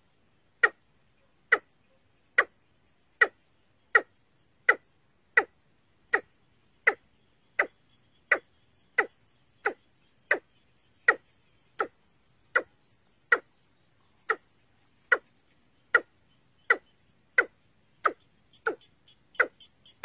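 Watercock calling: a short, sharp note repeated steadily, about one every three-quarters of a second, coming quicker and mixed with fainter notes near the end.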